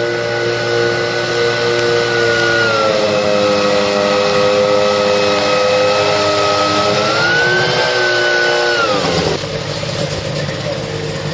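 A vehicle engine running at a steady speed, dropping in pitch about three seconds in, rising again around seven to eight seconds, then falling away near the end to a lower, steadier note.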